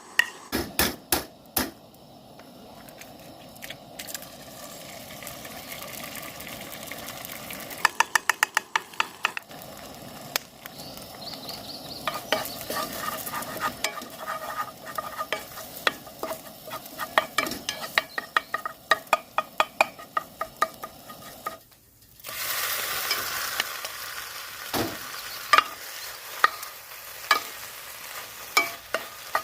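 Seafood and minari pancake batter frying in oil in a pan, a steady sizzle under sharp clinks of a utensil against the pan or bowl, with a quick run of even strokes about eight seconds in. A little over two-thirds through the sizzle drops out for a moment, then comes back louder and brighter, with scattered taps.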